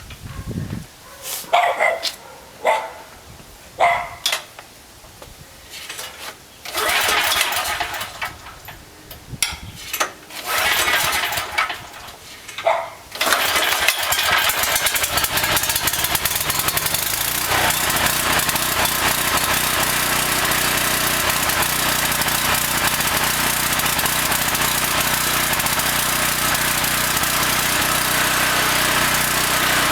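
A dog barks a few times, and there are several noisy pulls on a recoil starter. About 13 seconds in, a Homelite 5700-watt portable generator's engine catches on natural gas, fed through a tri-fuel conversion kit. It settles within a few seconds and runs steadily.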